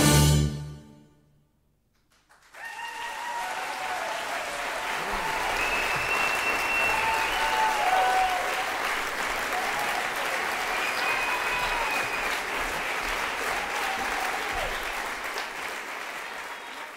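A wind band's closing chord rings and dies away in the first second, and after a brief silence the audience breaks into sustained applause mixed with scattered cheers.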